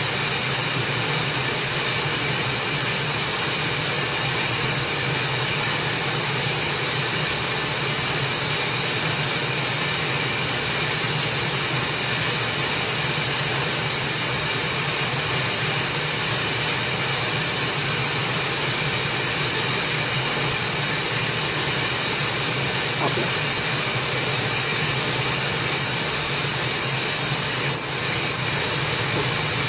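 Steady loud hiss of radio static from an SDR receiver tuned to an empty 410 MHz channel, heard through a computer speaker. Near the end it dips briefly as the AM transmitter comes on the air.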